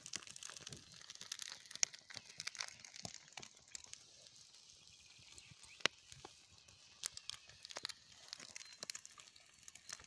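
Small open fire of dry twigs and brush crackling, with irregular sharp pops, a few of them louder, over a faint steady hiss from eggs frying in a pan set on the flames.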